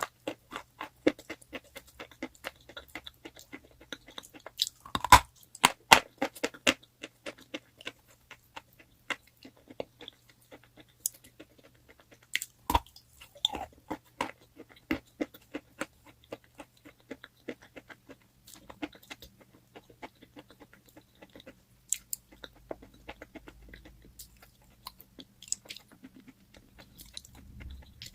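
A person biting and chewing crunchy chalk close to the microphone: a dense run of sharp crunches and crackles, with the loudest bites about five to six seconds in and again near thirteen seconds. The crunching grows sparser in the second half.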